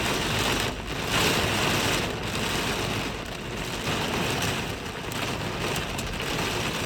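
Heavy rain pouring down in a storm: a dense, steady hiss that swells and eases every second or so.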